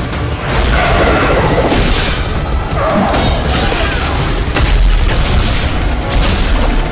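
Dramatic action score laid with heavy booms and crashing impact sound effects, dense and loud throughout.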